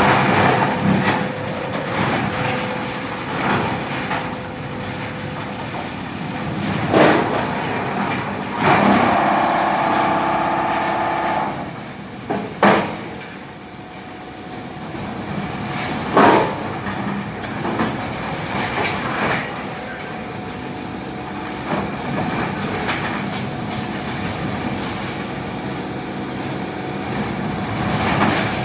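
Tub grinder running and grinding waste wood and branches: a steady, loud mechanical din broken by several sharp loud cracks.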